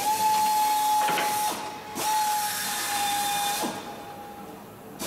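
Drill drilling out aluminium rivets to free an extrusion from a Lancaster fuselage former's web: a steady high whine with hiss, in two runs of under two seconds each with a short break between, stopping about a second before the end.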